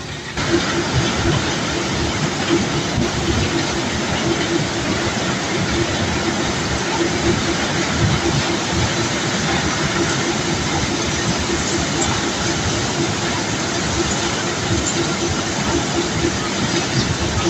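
Continuous rumbling rattle of cobblestones being moved by unloading machinery, over a steady machine hum. It gets louder about half a second in.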